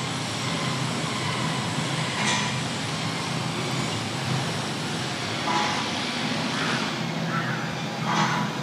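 Steady low mechanical hum under a wash of background noise, with a few faint short sounds over it.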